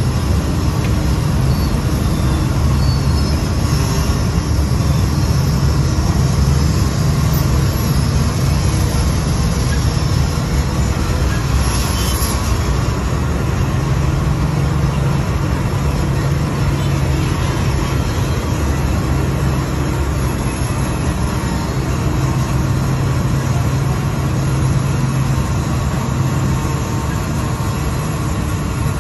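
River passenger ferry's engine running steadily, a low drone with an even rush of water and wind noise over it.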